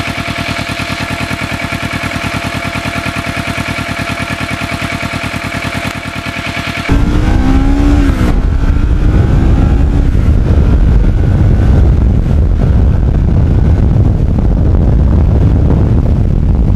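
Kawasaki Ninja 650R parallel-twin engine idling steadily. About seven seconds in the sound changes to the bike under way: the engine revs rise, then the engine runs under heavy wind noise on the microphone.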